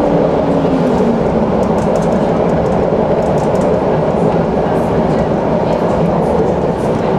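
Electric tram running along its track: a steady rumble of wheels on rails and running gear, with a motor tone that slides down in pitch in the first second or two.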